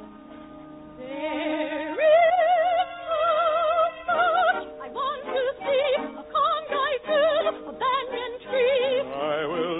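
Orchestral operetta music from an old, narrow-band radio broadcast recording. Soft held chords swell about two seconds in, and a high operatic voice then sings a wide-vibrato melody over the orchestra.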